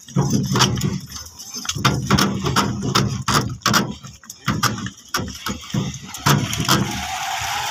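Wooden bullock cart drawn by two Hallikar bulls rolling along a dirt track: a quick, irregular run of sharp clacks and knocks from the cart and its yoke.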